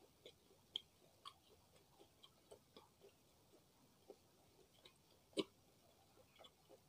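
Close-miked chewing of martabak telor, the stuffed egg-and-meat pancake: soft, irregular wet mouth clicks and smacks, with one louder click about five seconds in.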